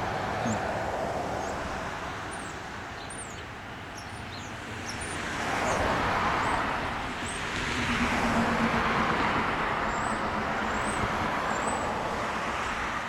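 Cars driving past on a street: tyre and engine noise that swells and fades, loudest about halfway through and again a couple of seconds later.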